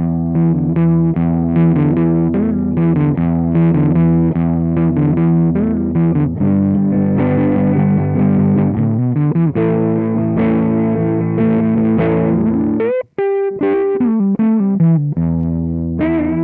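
Electric guitar played through an Electro-Harmonix Big Muff π fuzz pedal, its sustain knob turned fully down (the pedal's lowest-gain setting) and its tone knob at 12 o'clock. It plays a riff of quick notes, breaks off briefly about thirteen seconds in, then picks up again and ends on a chord that is left ringing.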